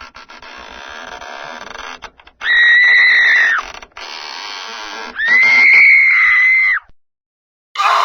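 Two long, high-pitched human screams, each held at one steady pitch for more than a second, about two seconds apart, over a quieter crackly noise; another scream starts right at the end.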